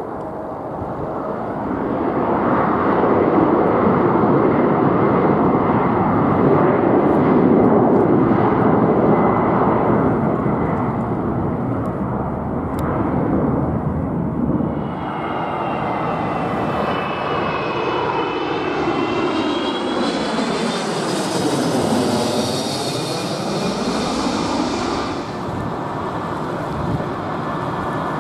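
Jet engines roaring as an Embraer E190 rolls along the runway. About halfway through, a wide-body Airbus A330-300 passes close overhead with a high engine whine and a whooshing sweep that dips in pitch and rises again.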